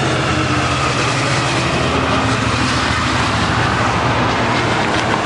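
Coaster commuter train of bilevel passenger cars, hauled by an F59PHI diesel locomotive, passing close at speed: a steady loud rush of wheels on rails over a low diesel drone.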